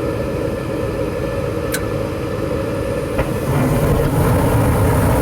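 Gas furnace start-up: the exhaust vent (inducer) motor runs with a steady hum, then a little over three seconds in there is a click and the sound steps up into a louder, fuller rumble as the burners light after the glow-plug igniter has heated.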